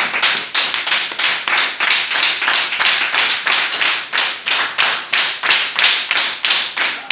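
A small group clapping their hands together in a steady, quick rhythm.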